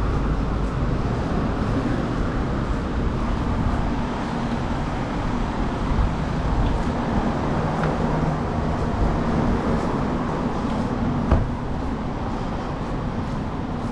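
City street traffic: a steady rumble of passing vehicles with engine hum, and one sharp knock about eleven seconds in.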